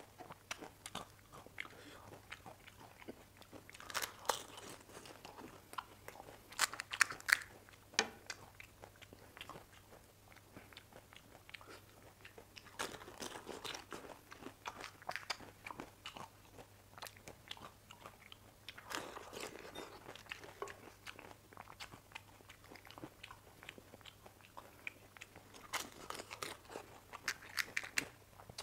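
Close-miked crunching of panipuri: crisp fried puri shells cracked open by hand and bitten, in bursts of crackly crunches every few seconds with chewing in between. The loudest crunches come about seven seconds in.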